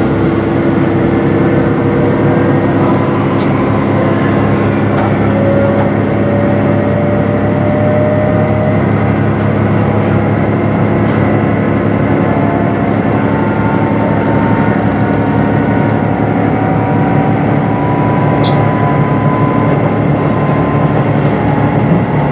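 Cabin sound of a HOT7000 series diesel multiple unit on the move: a steady diesel engine drone with a running rumble. Faint whines slowly rise in pitch as the train gathers speed.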